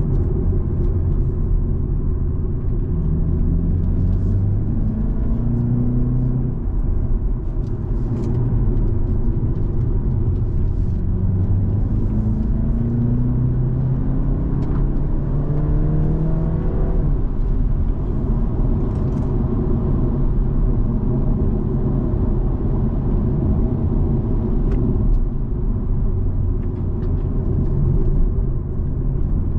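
BMW car's engine heard from inside the cabin, pulling hard on track: its note rises in pitch a few times and drops back with each upshift or lift, over a steady rumble of road and tyre noise.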